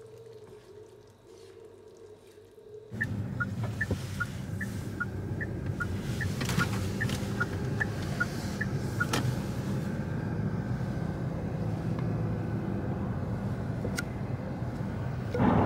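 Faint stirring in a frying pan, then, from about three seconds in, steady road and engine noise of a car being driven. For several seconds a regular ticking alternates between a higher and a lower pitch over the road noise.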